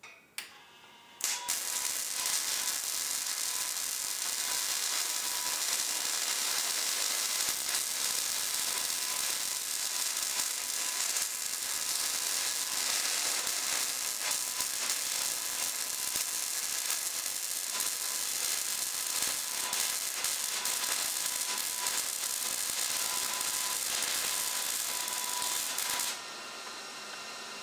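Millermatic 211 MIG welder arc, using 75/25 argon-CO2 gas on mild steel, crackling and sizzling as a bead is laid. A brief strike comes right at the start, then one continuous run of welding from about a second in that stops near the end.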